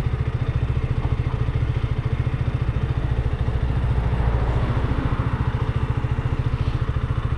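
Motorcycle engine idling with a steady, fast low-pitched pulse.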